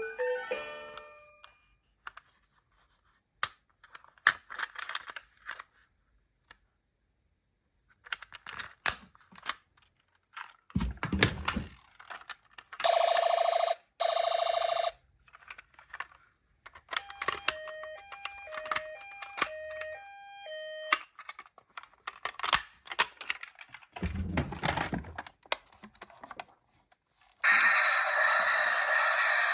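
Toy ambulance miniature car clicking and rattling as it is handled and run, with its electronic siren sounding: two short buzzy blasts about halfway through, then a hi-lo two-tone pattern a few seconds later. A louder steady noise starts near the end.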